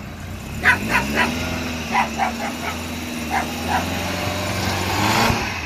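A dog barks repeatedly, short sharp barks in the first four seconds, over the small engine of a kei mini truck. The engine revs up about half a second in as the truck climbs onto the trailer ramps, holds steady under load, and drops away just before the end.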